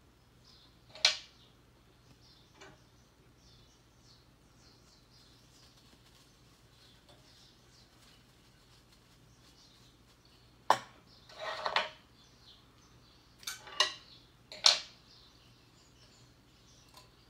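Sharp metallic clicks and clinks of a circular sock machine's steel needles and cylinder being handled: one click about a second in, then a run of about six clinks in the second half.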